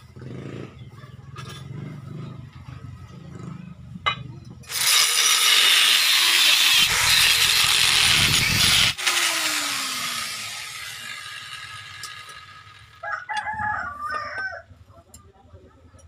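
Handheld angle grinder cutting a small steel plate for about four seconds, then switched off and spinning down with a falling whine. Near the end a rooster crows once.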